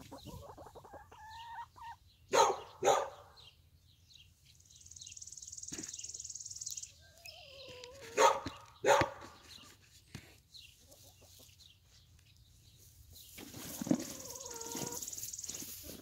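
Backyard hens clucking and making drawn-out wavering calls as they forage over a pile of soil. Twice, a pair of short, sharp, louder calls half a second apart stands out, about two and a half seconds in and again about eight seconds in.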